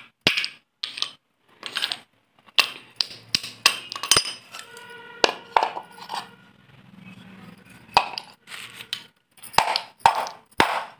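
Broken terracotta clay pots and shards clinking and knocking against each other as they are handled in a pile: a string of sharp clinks, some ringing briefly.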